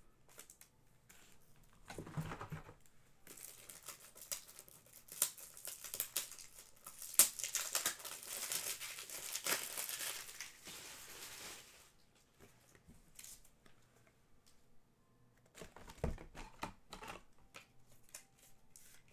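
Trading card packaging being torn open and crinkled, with a brief rustle at first and then a long stretch of crinkling from about three to twelve seconds in. A few light knocks follow near the end as the cards are handled.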